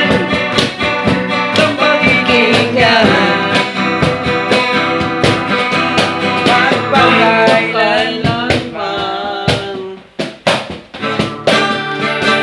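Acoustic guitar strummed in a steady rhythm, with a man singing along at times. The playing thins out briefly about ten seconds in, then the strumming picks up again.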